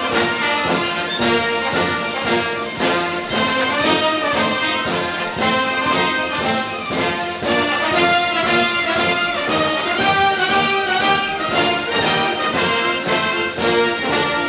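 Epic orchestral music led by brass, with a steady percussion beat under it.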